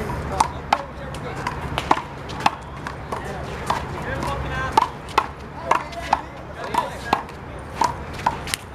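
One-wall handball rally: a quick, uneven string of sharp smacks, about two a second, as the big blue rubber ball is struck by hand and bounces off the wall and the court.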